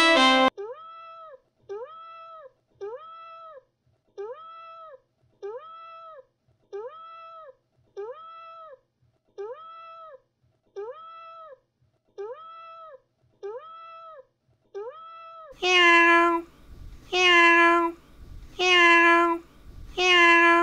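A cat meowing over and over at a very even pace, each short call the same shape, about one a second. About fifteen seconds in, louder, lower meows take over, roughly one every second and a half.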